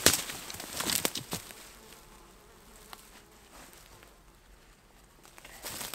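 Flies buzzing, with black plastic sheeting over a meat-filled game bag crinkling a few times in the first second and a half as it is handled.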